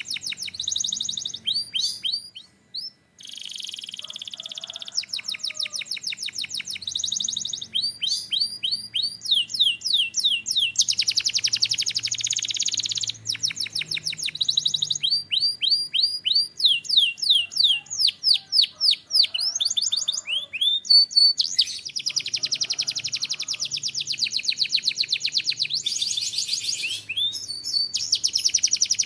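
Canary singing a long, loud song of fast trills and runs of rapidly repeated notes, with one short break about three seconds in.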